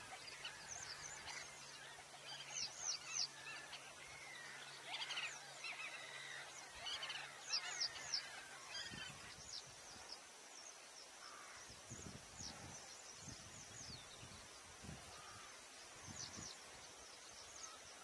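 Caged canaries giving short, high chirping calls in quick little clusters, busiest in the first half and sparser later. A faint low hum stops about halfway, and a few soft low thumps follow.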